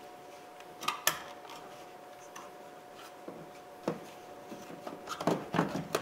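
Plastic clicks and knocks as the wiring connector is plugged into a new master power window switch and the switch plate is handled and pressed into the door armrest: two sharp clicks about a second in, another near four seconds, then a cluster of knocks near the end.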